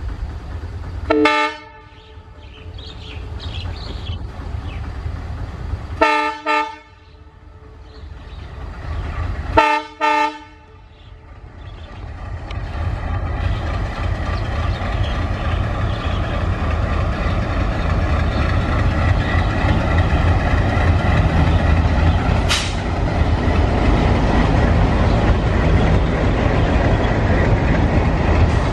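WDM-3D diesel-electric locomotive sounding its horn three short times in the first ten seconds, then its diesel engine grows louder as it runs past, followed by the steady rumble and clatter of its passenger coaches rolling by.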